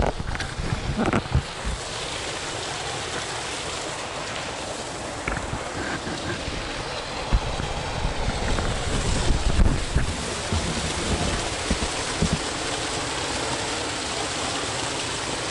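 Steady rush of a mountain stream's flowing water, with gusts of wind buffeting the microphone and low thumps, strongest about a second in and again between seven and ten seconds.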